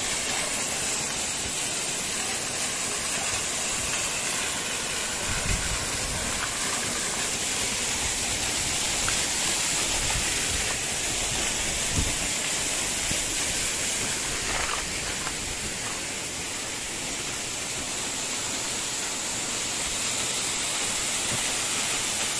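Waterfall pouring into a mountain stream: a steady rush of falling water, with two brief low bumps about five and twelve seconds in.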